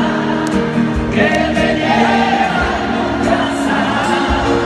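Live pop-rock concert music with singing, played by a band in a large arena.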